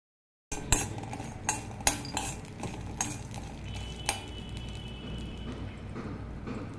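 Metal utensils clinking against cookware during cooking: about six sharp clinks in the first four seconds, one followed by a brief ringing tone, over a low steady hum.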